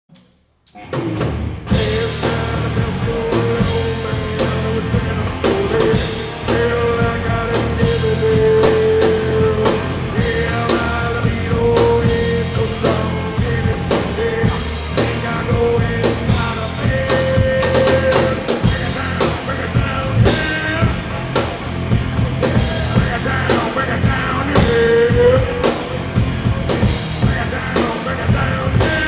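Rock music with a drum kit and singing, starting abruptly about a second in after silence.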